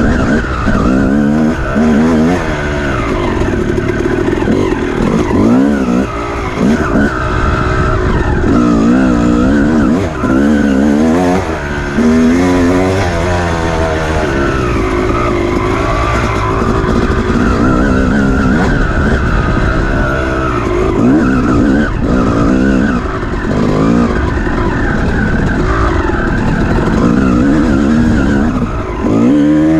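Off-road dirt bike engine revving up and down hard while being raced, its pitch rising and falling every second or two.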